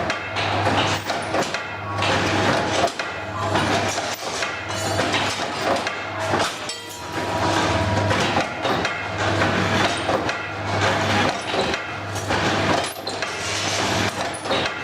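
Electric rebar cutting machine running: a steady motor hum with repeated, irregular metallic clanks and knocks.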